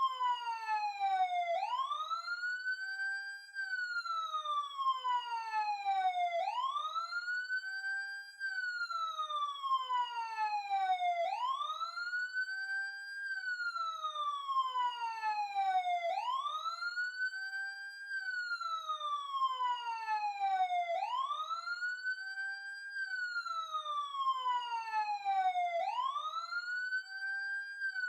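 Police siren sounding a wail: each cycle sweeps up quickly, holds briefly at the top, then falls slowly, repeating about every five seconds.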